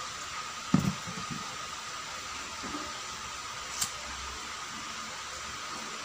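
Steady hum and hiss of a running electric fan, with a few short low handling knocks about a second in and a single sharp click a little before four seconds.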